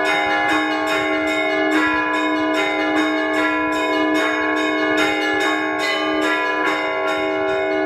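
Orthodox church bells rung by hand from the bell tower: several bells struck in a quick, even rhythm, their tones ringing on and overlapping into one continuous peal.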